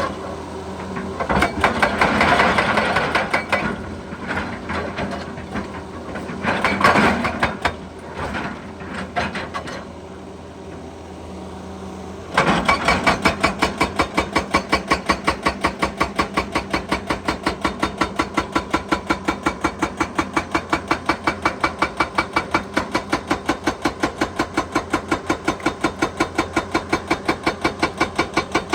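Excavator running with irregular crunching surges. About twelve seconds in, a hydraulic breaker starts hammering at a steady rate of several blows a second.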